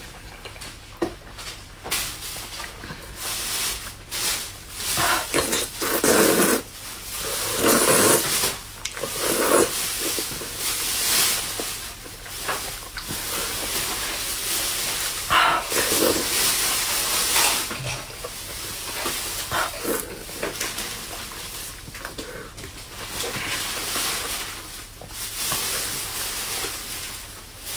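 Close, wet mouth sounds of eating soft braised eggplant in chili sauce: slurping, sucking and chewing, in irregular bursts.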